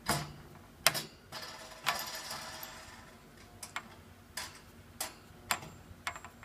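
Sharp, irregular clicks and clinks from a metal washer and wing nut on a plexiglass cage panel as they are handled, about eight in all. One near two seconds in is followed by a short ringing rattle.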